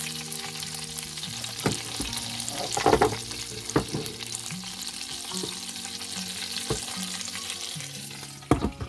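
Lamb joint sizzling in hot olive oil in the inner pot of a Russell Hobbs Express Chef multi cooker as it sears, a steady hiss with a few scattered knocks. Louder clicks come near the end.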